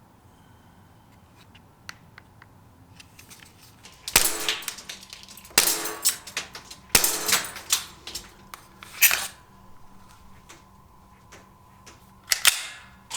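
Airsoft pistol being handled: a few light clicks, then five loud, sharp metallic clacks, each with a short ringing tail, one to three seconds apart.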